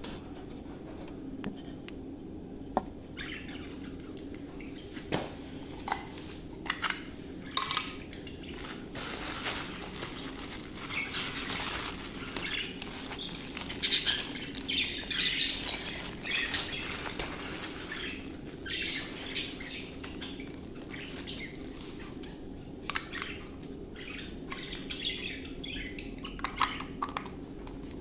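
Plastic bag of birdseed crinkling and rustling in irregular bursts as it is handled, with pet budgerigars chirping in their cages.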